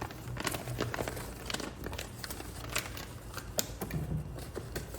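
Plastic packaging crinkling and rustling in irregular bursts of small crackles as it is handled, over a low steady hum.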